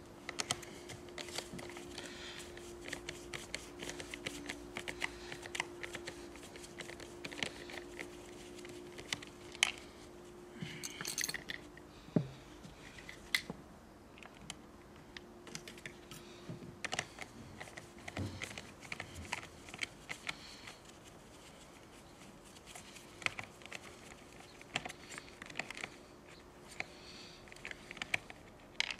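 Scattered light clicks, taps and scrapes of gloved hands and small tools working on the plastic and metal parts of a Stihl chainsaw, which is being taken apart to reseat its throttle cable. A faint steady hum sits underneath, clearer in the first half.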